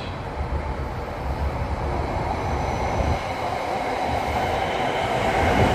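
SRT Red Line electric commuter train pulling into the platform, a steady rumble of wheels and motors that grows gradually louder as it approaches.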